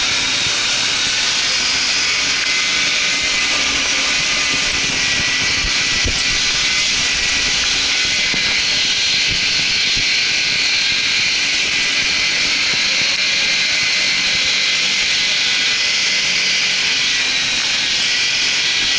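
Suzuki Jimny running steadily on the move, its engine a low drone under a loud, even hiss.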